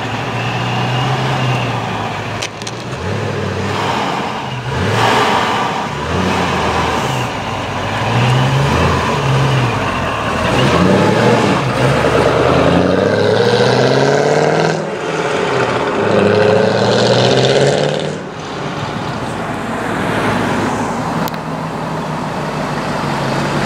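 Chevrolet C5 Corvette V8 revved again and again as it pulls away and drives past, its engine note rising and falling several times. Near the end it gives way to a steadier, quieter engine note from another car rolling by.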